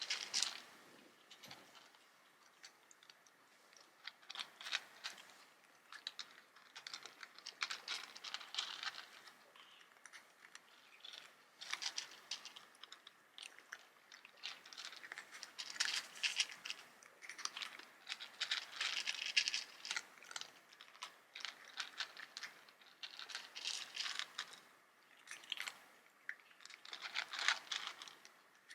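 Irregular crunching, chewing-like sounds close to the microphone, coming in short bouts every second or two.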